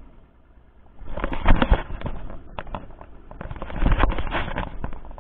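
Noise on the camera's microphone: two bursts of crackling and low rumble, each lasting about a second, the first about a second in and the second near the four-second mark.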